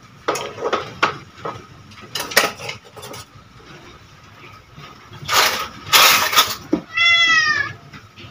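Dishes and kitchen utensils clinking and clattering, with two louder scraping clatters about five to six and a half seconds in. A domestic cat then gives a single meow near the end.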